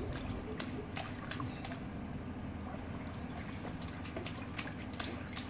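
Swimming-pool water lapping and splashing as swimmers and an inflatable float move through it, with irregular small, sharp splashes over a steady low background hum.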